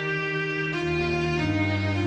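Background music of held, sustained notes, changing pitch twice.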